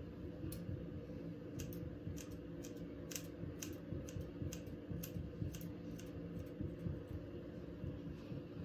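Scissors snipping hair in short, sharp, irregular clicks, about two a second, over a low steady hum.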